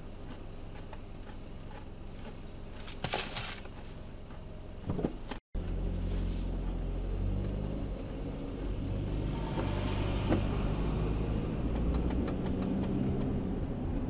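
Vehicle engine and road noise heard from inside the cab: a steady low hum while stopped, with a couple of short knocks about three seconds in. After a brief dropout the engine note gets louder and fuller as the vehicle pulls away and drives on.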